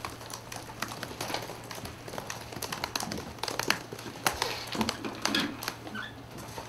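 Scattered, irregular clicks and taps in a small room over a steady low hum, with paper being handled and a few shuffling steps.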